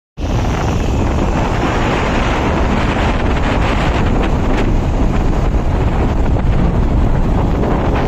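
Loud, steady wind buffeting a camera microphone moving at road speed, with a low rumble of the moving vehicle underneath.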